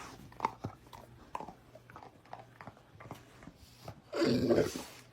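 A dog chewing on a bone, with scattered sharp crunches. About four seconds in comes a louder, noisy sound lasting about half a second.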